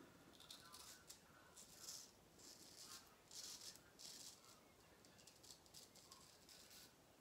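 Razor blade scraping through lathered stubble in a series of short, faint strokes.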